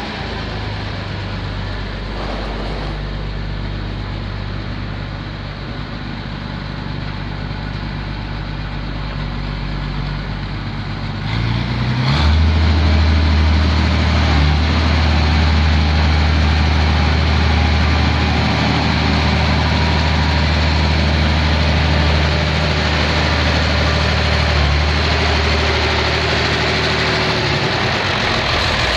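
Massey Ferguson MF 1100 tractor engine running steadily as the tractor drives, getting louder about twelve seconds in as it comes close.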